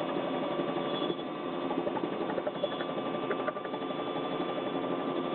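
Helicopter engine and rotor noise: a steady drone with a thin, constant whine.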